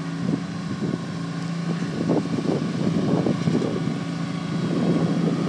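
An 18-horsepower riding lawn tractor's engine runs at a steady pitch, with irregular rushes of wind noise on the microphone over it.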